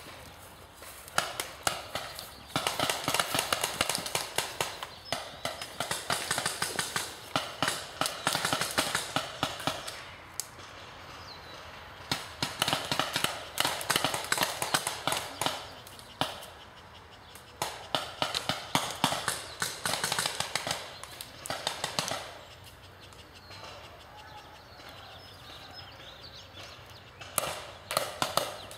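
Footsteps crunching through dry grass, twigs and leaves: bursts of rapid crackling lasting several seconds, with short pauses between them.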